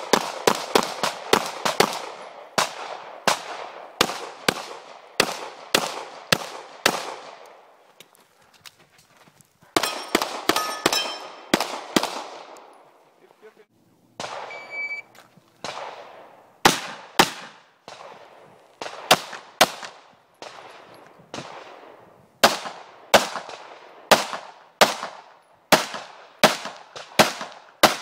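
SIG Sauer P226 pistol fired rapidly in quick pairs and strings, each shot a sharp crack with a short echo. The firing stops twice; during the second pause, about halfway through, a short high beep sounds before the shots start again.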